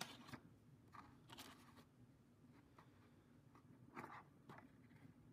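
Near silence, with a few faint taps and rustles from a ruler and paper being handled; the loudest comes about four seconds in.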